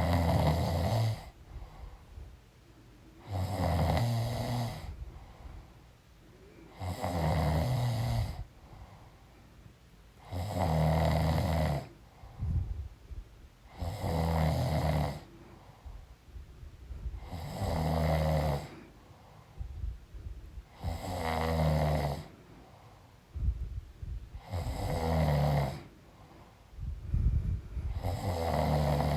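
A pregnant woman snoring in her sleep, with a loud snore about every three and a half seconds, each lasting just over a second, nine in all.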